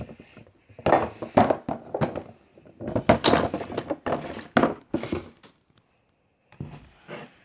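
Rummaging through belongings: irregular knocks and rustles as objects are moved and handled, quiet for about a second after about five seconds, then a few more knocks near the end.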